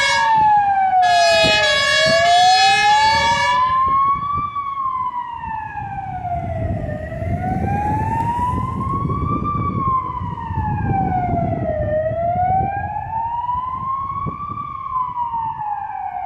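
Fire engines' pneumatic Martin horn sounding stepped notes over an electronic siren that wails slowly up and down. About four seconds in, the horn stops and the wailing siren goes on alone, rising and falling about every five seconds over low engine and road rumble.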